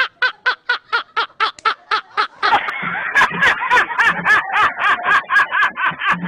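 Rapid, evenly spaced laughter, a quick run of 'ha-ha' pulses. About two and a half seconds in, more laughter joins and the sound becomes fuller.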